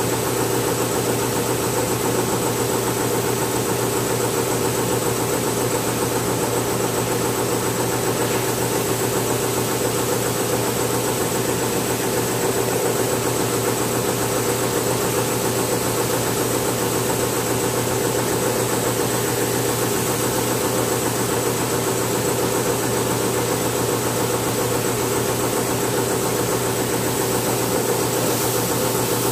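A motor running steadily: an unchanging machine drone with a constant low hum and a thin high whine.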